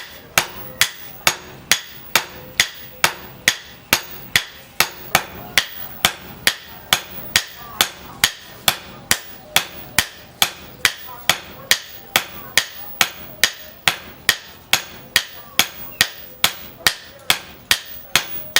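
Hand hammer striking steel on an anvil in a steady, even rhythm of about two and a half blows a second, each blow with a short metallic ring: hand-forging the machete blank.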